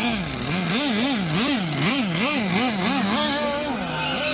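Small nitro RC buggy engine revved up and down about twice a second with blips of the throttle, then held at a steadier, higher pitch for a moment before dropping off near the end.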